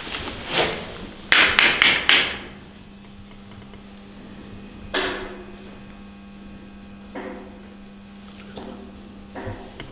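Knocking: a quick run of four or five loud knocks about a second and a half in, then single fainter knocks spaced a second or two apart. The knocks sound like something being struck, not like dripping.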